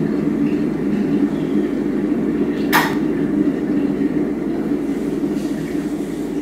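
Steady low machine hum or rumble, with one sharp clack nearly three seconds in.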